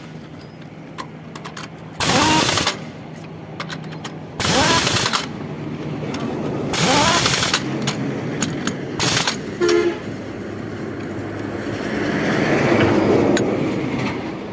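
A truck's engine running steadily while driving, broken by loud, short bursts of noise about every two seconds. There is a brief horn toot just before ten seconds in, and a swell of noise near the end.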